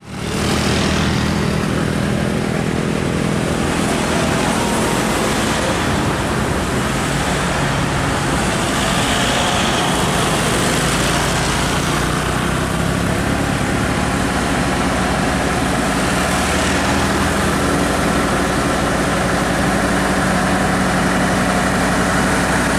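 Bus engine running steadily at idle amid road traffic noise.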